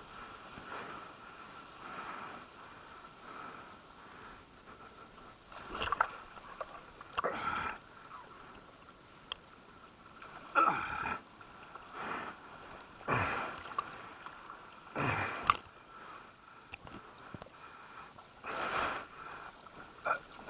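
A surfer's loud, sharp breaths and sniffs, about seven of them, spaced a second or more apart.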